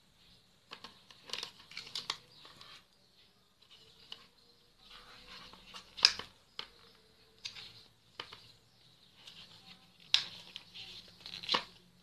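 Stiff cardboard flaps and pages of a lift-the-flap board book being handled: scattered taps, clicks and rustles of card, the sharpest click about halfway and another cluster near the end.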